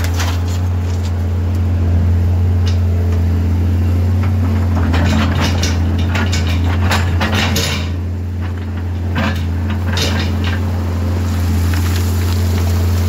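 Caterpillar 320CL excavator's 3306 diesel engine running steadily, with irregular metallic clanks and rock clatter as the bucket works rock, the clanks thickest in the middle.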